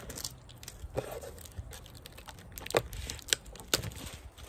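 Plastic wrap crinkling and tearing as it is pulled off a wooden piece, with a few sharp clicks scattered through it.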